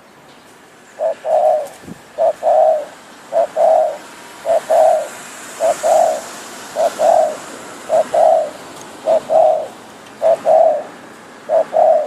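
Decoy spotted dove cooing: a short note followed by a longer one, repeated steadily about ten times, roughly one phrase every second and a bit.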